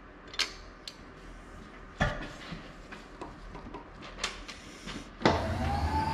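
Metal tooling handled at a milling machine: light clicks and a sharper clank about two seconds in. About five seconds in, an electric motor starts with a thump and a whine that rises and then holds as a steady hum.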